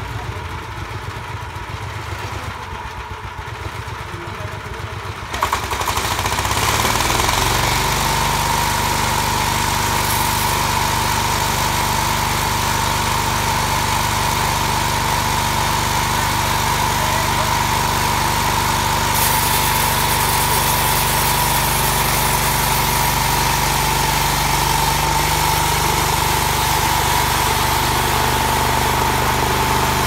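Small engine of a portable band sawmill idling, then throttled up about five seconds in, rising in pitch over a couple of seconds and settling into steady running at speed with a high whine.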